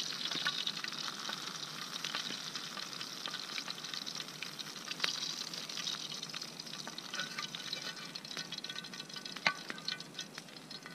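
Oil sizzling in a frying pan where perch have been fried, with sharp metal clicks and scrapes as a knife works in the pan.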